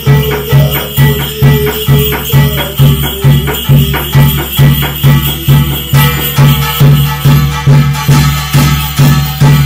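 Korean shamanic gut ritual music: a drum beating a steady rhythm of about two and a half strokes a second, with jingling rattle-like percussion over it. A single held tone sounds along with it and fades out about seven seconds in.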